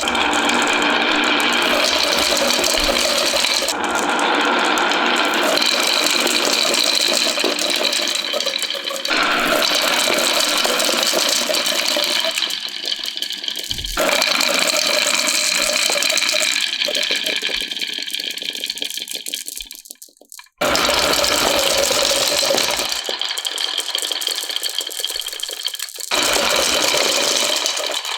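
Marbles rolling and rattling along rain-gutter channels and wooden rails, a dense continuous clatter. It changes abruptly several times and fades almost to nothing about two-thirds of the way through, then starts again at full level.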